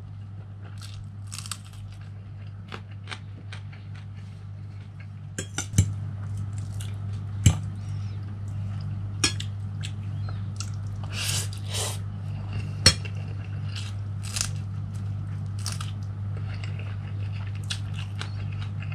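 Metal fork and spoon clinking and scraping on a plate as someone eats noodles, with chewing in between; a few sharp clinks stand out, the loudest about 13 seconds in. A steady low hum runs underneath.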